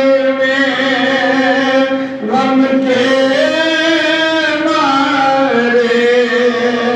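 A man singing an Urdu nauha unaccompanied, with long held notes that slide slowly up and down in pitch and a short breath about two seconds in.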